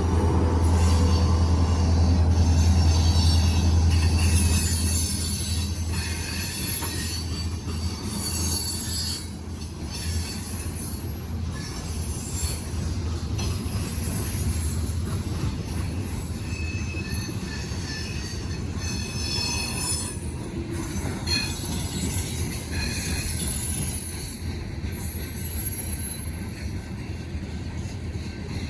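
Freight train rolling past: a locomotive's heavy diesel drone for the first five seconds, then the cars rumbling and clattering by with intermittent high-pitched wheel squeal.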